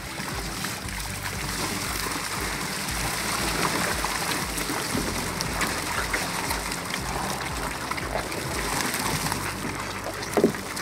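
Seawater splashing and streaming off a wet fishing net as it is hauled by hand into a boat, with a steady low hum underneath. There is a short knock near the end.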